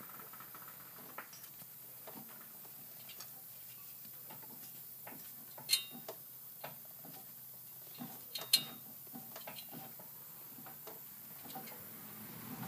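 Faint, irregular metallic ticking from a car's wheel hub turning with the brakes removed, with two sharper, ringing metallic clinks about six and eight and a half seconds in. It is the metal-on-metal noise the owner suspects is a bad wheel bearing.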